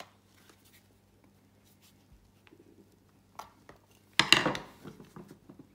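Plastic housing of a Flexi retractable dog leash being pried at with a screwdriver: faint scrapes and a small click, then a sudden loud snap with a short rattle about four seconds in.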